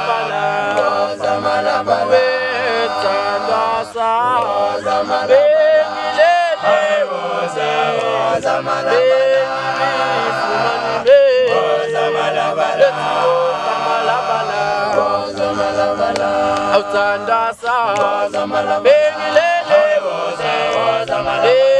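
Male vocal group singing a gwijo-style chant a cappella in isiZulu. A lead voice glides and wavers over sustained harmony from the others.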